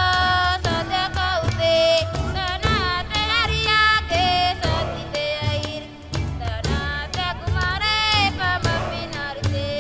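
Background music: a singing voice with wavering, bending notes over a steady low beat with regular percussion hits.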